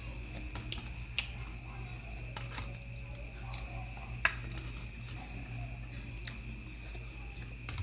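Scattered light clicks and taps of someone eating a seafood meal with a spoon and fork, the sharpest about four seconds in, over a steady low hum.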